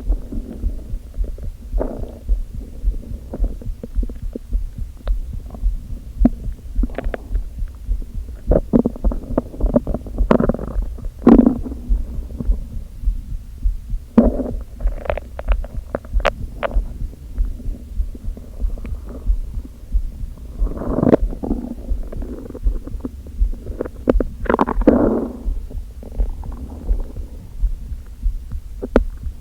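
Empty, hungry stomach gurgling and rumbling, recorded close against the belly, in separate bursts every few seconds. The strongest bursts come about eleven seconds in and again around twenty-one and twenty-five seconds. A steady low pulsing runs underneath.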